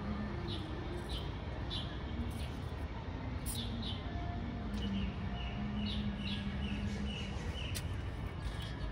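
Small birds chirping, short high calls repeated every half second or so, over a steady low background hum.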